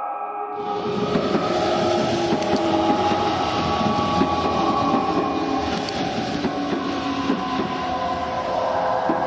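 A train running past, a loud rushing clatter that starts about half a second in, with steady tones held over it.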